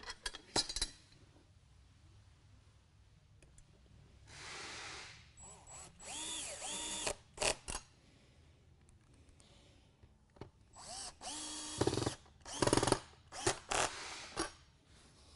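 Cordless drill with a square-drive bit driving screws through a steel bracket into a desktop. It runs in several short bursts, spinning up and down for each screw, with short clicks between the runs.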